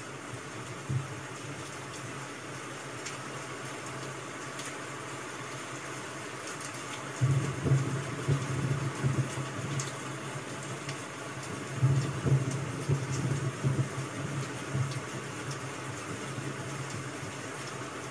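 Steady rain-sound ambience with faint scattered ticks. Louder, irregular low rumbles come twice, about seven and twelve seconds in.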